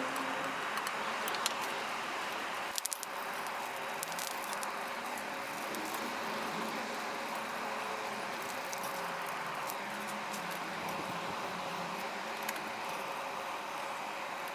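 Steady rushing air noise with a faint hum, like a blower feeding a small charcoal melting furnace. Scattered light clicks and scrapes come from ash and charcoal being scooped out of the furnace, a sharper cluster about three seconds in.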